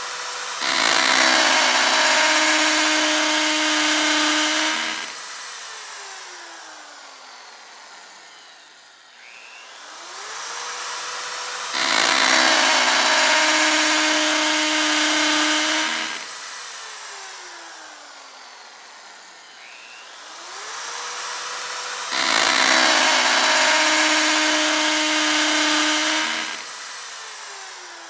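Electric drill run three times: it spins up, bores loudly for about four seconds, then winds down with a slowly falling whine as the trigger is released.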